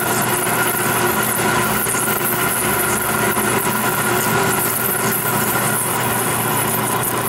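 Metal lathe parting off a spinning 4140 steel bar: the parting tool cutting steadily, with the lathe's drive humming in several steady tones under the cutting noise.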